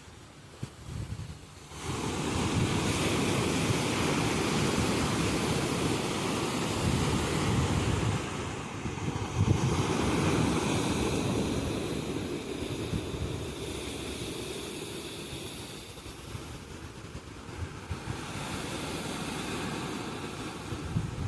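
Sea waves breaking on the shore and washing up the sand: a large surge about two seconds in that slowly fades, and a smaller one near the end.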